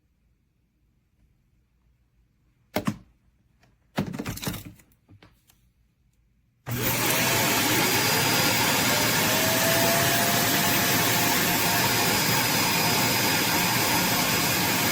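A few clicks and knocks, then a vacuum motor switches on abruptly about seven seconds in: its whine rises over a couple of seconds and then holds steady over a loud rush of air.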